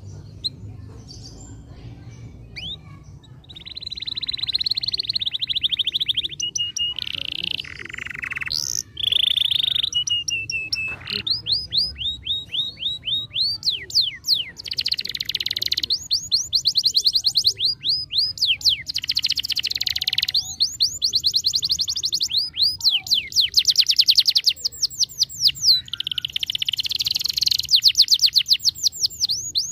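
Canary singing a long song of rapid trills beginning about four seconds in: runs of quick repeated up-sweeping notes, one trill type after another, over a faint low hum.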